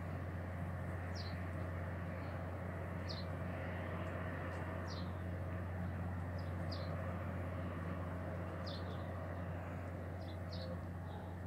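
Small birds chirping: short, high, falling notes every second or two, over a steady low hum.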